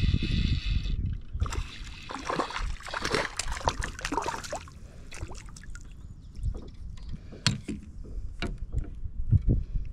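Water splashing and sloshing against the side of a kayak, with scattered knocks on the hull. A steady whir stops about a second in.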